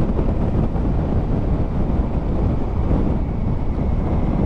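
Steady wind and road noise on the rider's microphone while riding a 2019 Honda Africa Twin motorcycle, a dense low rush with no distinct engine note standing out.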